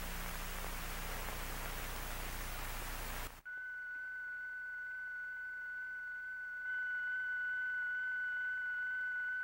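Old film-soundtrack hiss with a low hum for the first three seconds or so. Then a steady high-pitched tone comes in, produced by a transistor powered by a makeshift battery of moist blotting paper wrapped around a coin. It holds one pitch, and a fainter higher tone joins it and it grows slightly louder a little past the middle.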